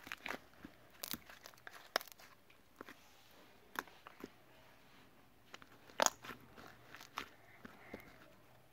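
Slime being squeezed and pressed by hand, giving irregular sharp pops and crackles, the loudest about six seconds in.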